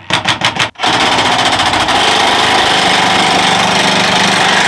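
20V cordless impact driver driving a long screw through a gutter hanger into the fascia. It gives a few short bursts in the first second, then hammers steadily for nearly four seconds and cuts off near the end as the screw seats.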